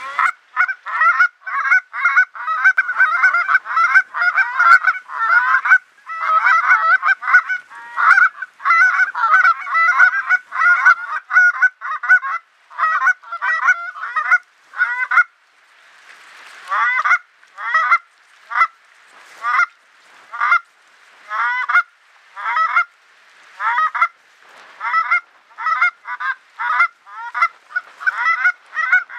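A hunter's goose call blown hard in fast runs of honks and clucks, nearly continuous for the first fifteen seconds, then after a brief pause as single clucks at about one and a half a second: calling to geese flying over the decoys.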